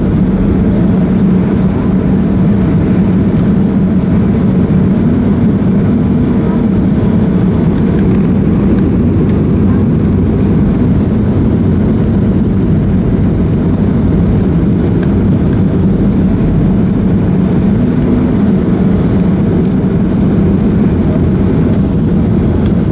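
Steady drone inside the cabin of a Boeing 737-300: its CFM56 jet engines and the rush of air heard through the fuselage, holding an even low hum without changes in power.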